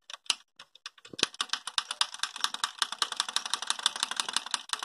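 Rapid, sharp metallic clicking and rattling at the Massey Ferguson 85 tractor's diesel engine as air is bled from its fuel system. A few scattered clicks, then a dense fast run from about a second in.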